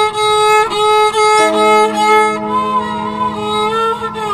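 Instrumental music led by bowed strings playing held notes that bend slightly. A low held note joins about a second and a half in, and the melody slides down near the end.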